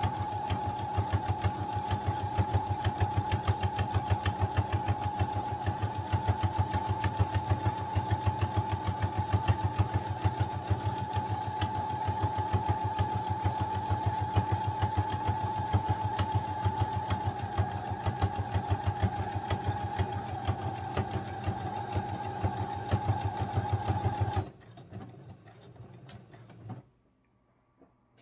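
Brother SQ9130 sewing machine stitching a seam through quilted fabric: a steady motor whine with the needle's rapid, even clatter, which stops suddenly near the end.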